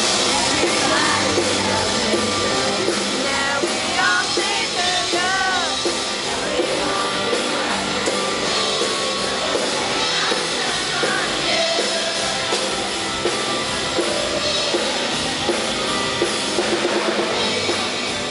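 Live pop-rock band playing through a PA, drum kit and instruments going steadily, with some singing.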